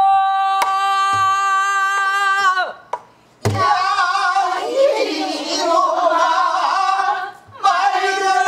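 A woman singing pansori, holding a long steady note that breaks off about 3 s in, then after a stroke of a buk barrel drum going on with a shaking, ornamented line, and holding a note again near the end. A few low drum strokes sound under the singing.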